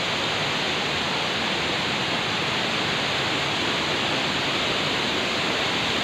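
Steady rush of a tall waterfall's falling water, an even hiss that does not change.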